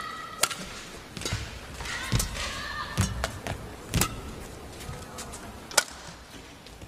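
Badminton rally: sharp racket strikes on the shuttlecock roughly once a second, six in all, the loudest near the end, over the low hum of the arena.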